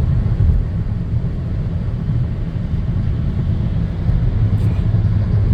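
Steady low rumble of tyre and engine noise inside a moving car on a wet, slushy road.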